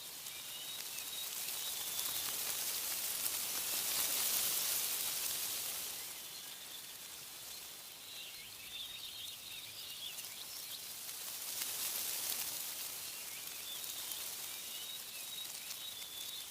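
Wind blowing through trees in gusts, swelling about two seconds in and again around twelve seconds, with small birds chirping and twittering between the gusts.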